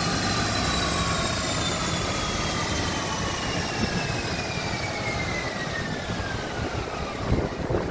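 Infiniti G37 coasting down on a chassis dyno after a pull: the spinning rollers, tires and drivetrain give a whine that falls steadily in pitch as they slow. A few sharp knocks come near the end.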